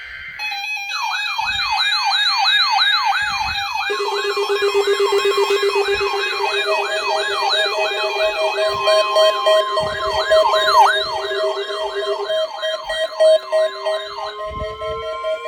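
NOAA Weather Radio alert receivers alarming for the required weekly test: a loud siren-like tone sweeping up and down about three times a second, joined by steady beeping tones about four seconds in and by rising tones near the end.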